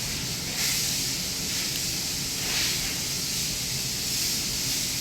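A steady hiss, swelling and easing a few times.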